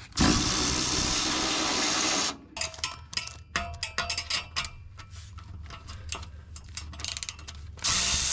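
A handheld power tool runs in two bursts of about two seconds, one at the start and one near the end, as it works fasteners loose on an exhaust system. Between the bursts, metal parts click and rattle.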